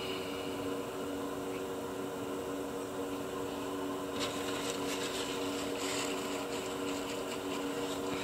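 Steady machine hum made of several steady low tones, like a shop motor or fan running. From about four seconds in, faint scratchy rustles come and go over it.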